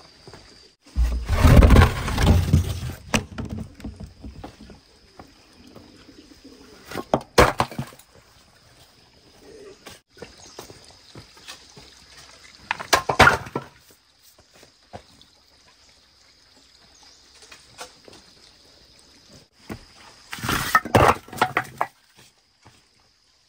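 Armfuls of split firewood dropped into a brick-lined pit, clattering and thudding onto the wood and ash at the bottom in four separate bursts, the first and heaviest about a second in, then about seven, thirteen and twenty-one seconds in. A faint steady high tone runs underneath.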